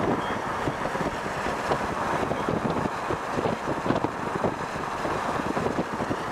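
Rough, steady rush of wind buffeting the microphone from a moving car, with the car's road noise under it.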